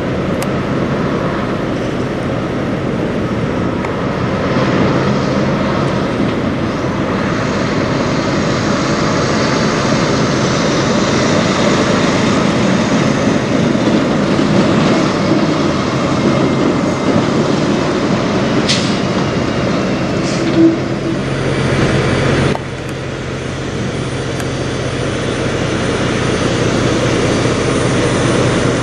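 Kenworth W990 semi truck's diesel engine running with tyre and road noise as it approaches and passes, with a short sharp sound around two-thirds of the way through. After an abrupt change, the engine runs steadily at close range.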